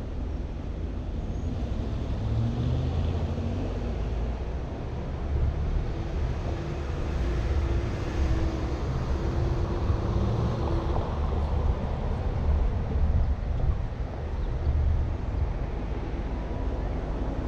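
A car driving, with a steady rumble of engine and road noise.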